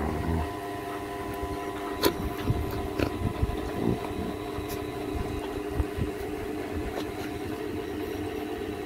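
Electric fan humming steadily, with a few short knocks and rustles close by as the dogs and cat move against the camera.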